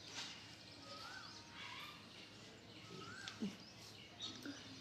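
A bird calling: a short chirp that rises and falls in pitch, repeated about every two seconds over faint background hiss.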